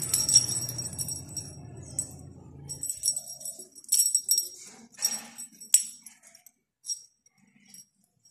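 Small bell on a feather wand cat toy jingling in short, repeated bursts with gaps between them as a kitten bats and bites at it.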